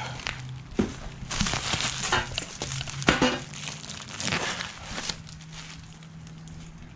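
Plastic bubble wrap and crumpled kraft packing paper rustling and crinkling in irregular bursts as a wrapped exhaust header is handled, with a faint steady low hum underneath.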